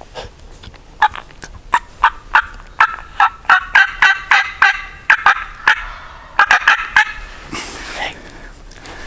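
Turkey calling: a run of short, loud notes, about three a second, beginning about a second in, coming faster in the middle and breaking off around seven seconds.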